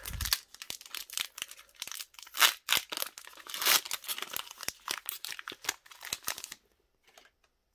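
Foil wrapper of a Pokémon trading-card booster pack crinkling and tearing as it is ripped open by hand, in a run of sharp irregular crackles that stops near the end.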